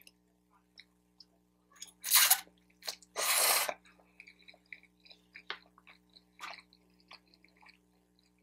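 Close-up mouth sounds of eating lo mein noodles: two loud slurps about two and three seconds in, then wet chewing with small mouth clicks.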